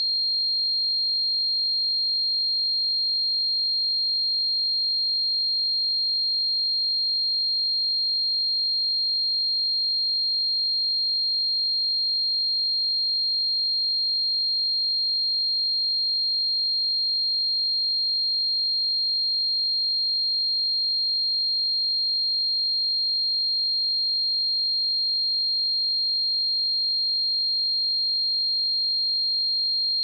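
A pure 4216 Hz sine-wave test tone: one steady, unchanging high-pitched note.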